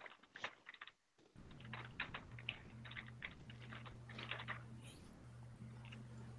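Faint typing on a computer keyboard: scattered runs of quick key clicks, over a steady low hum.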